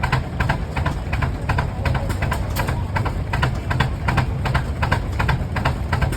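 Rumely OilPull tractors' big two-cylinder engines running under belt load, with a steady, rapid exhaust beat of about four to five sharp cracks a second over a low rumble.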